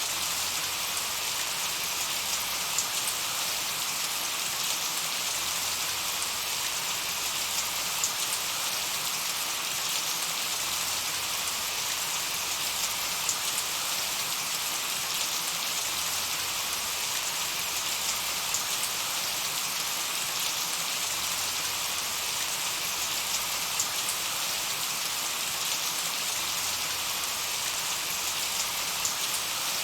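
Steady, gentle rain: a continuous hiss with many scattered small drop ticks and now and then a louder single drop.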